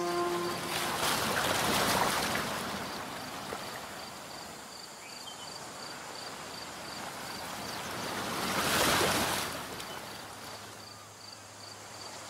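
Waves washing in: a rush of water noise that swells and fades about a second in, and again about seven seconds later, with a faint high tone pulsing steadily underneath.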